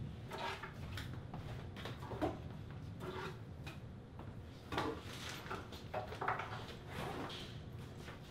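Irregular light knocks, clicks and clatter of household objects being handled and set down on a kitchen counter, several louder knocks spread through the middle of the stretch.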